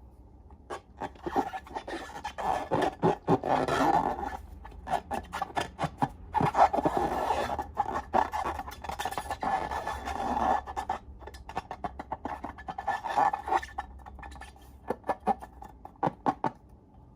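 Slime being worked by hand: irregular bursts of sticky clicks, crackles and scraping that begin about a second in and stop near the end.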